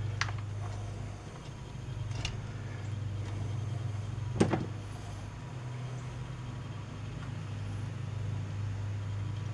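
Light clicks and one sharper knock about four and a half seconds in, from chainsaw carburetor parts being handled and fitted by hand, over a steady low hum.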